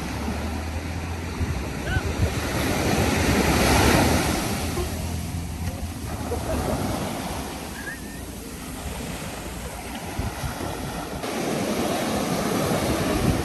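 Surf breaking and washing ashore in a rough sea, with wind buffeting the microphone. The wash swells to a loud peak about four seconds in, eases off in the middle and builds again near the end.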